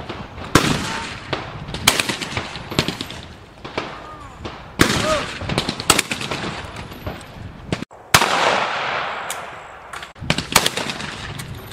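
Shotgun shots at a clay target range, one every second or so, each cracking sharply and then trailing off in an echo.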